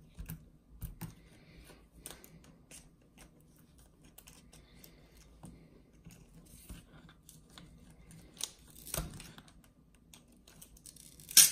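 Small clicks and knocks of plastic and metal parts being handled as the tie rod and sway bar link ends are popped off their ball studs on an RC truggy's front end, with a sharper snap near the end.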